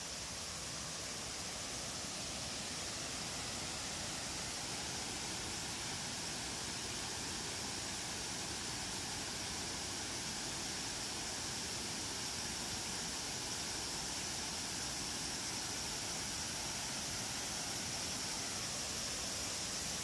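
Steady rushing of Shiraito Falls, many thin cascades pouring down a wide curved cliff face, heard as an even roar that slowly grows a little louder.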